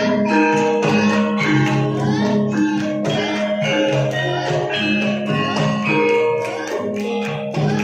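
Javanese traditional music: an instrumental passage of struck tuned percussion over a steady low note, with regular drum and jingling percussion strokes.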